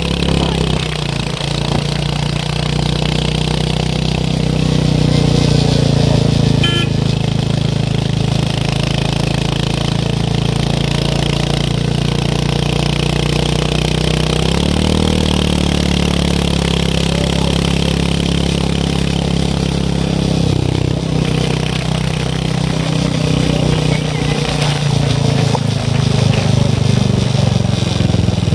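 Royal Enfield Hunter 350's single-cylinder engine and exhaust running while the bike is ridden: a steady low engine note whose pitch shifts a few times as the throttle changes.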